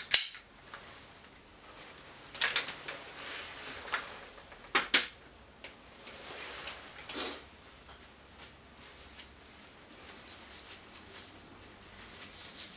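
Scattered metal clicks and clacks of an M16-style rifle being taken apart by hand, with quieter handling noise between; the sharpest clicks come at the start and about five seconds in.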